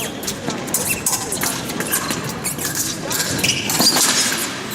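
Fencers' footwork on the piste during an épée bout: shoes squeaking and shuffling, with short sharp clicks, over the busy noise of a large sports hall.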